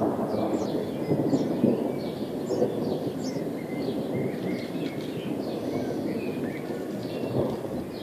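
Thunder rumbling steadily on and on from an approaching thunderstorm, with birds chirping over it.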